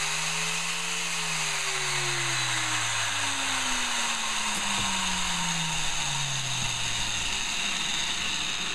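Makita angle grinder running free with no wheel fitted: its motor pitch peaks about a second in, then falls steadily as it winds down after being switched off.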